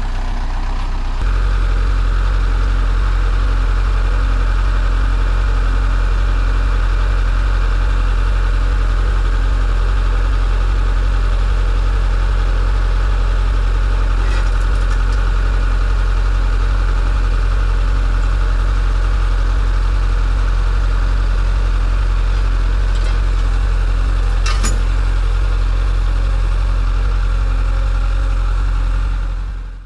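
Compact loader tractor's diesel engine running steadily with a deep low rumble, with a couple of short sharp knocks partway through.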